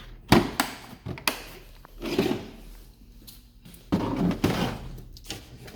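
Metal toolbox drawers being opened and shut, with sharp knocks and the rush of the drawer slides, as tools are handled inside.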